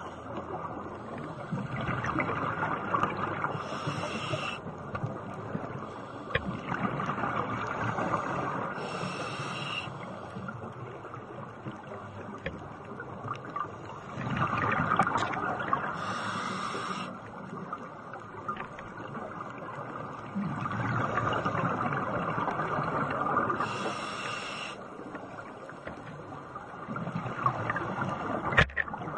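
Scuba diver breathing through a regulator underwater: a recurring cycle of bubbling exhalations lasting a couple of seconds, about five times, with short hisses of inhalation in between.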